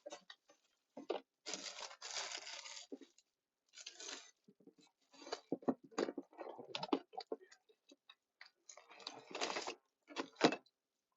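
Rummaging through bags and food supplies: plastic rustling in irregular bursts, mixed with clicks and knocks of bottles and containers being moved, while searching for a bottle of yakiniku sauce.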